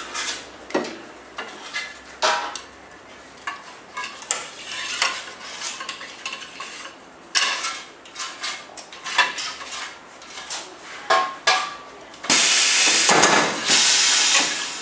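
Aluminium window-frame profiles and fittings being handled and turned over: repeated light metallic clinks and scrapes. Near the end comes a loud steady hiss lasting about two seconds.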